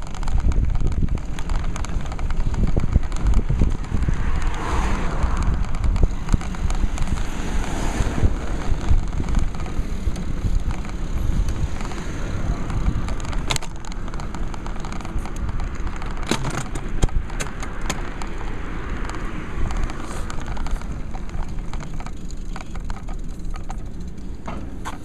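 Wind buffeting the microphone of a camera mounted on a moving bicycle's handlebars, with heavy rumble from the road and a few sharp clicks and rattles from the bike. It gets quieter near the end as the bike slows.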